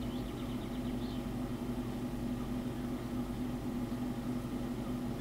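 Steady low mechanical hum with a constant tone.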